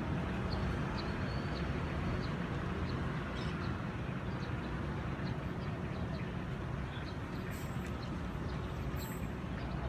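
Steady low rumble of outdoor street ambience, likely distant traffic, with faint short bird chirps scattered through it.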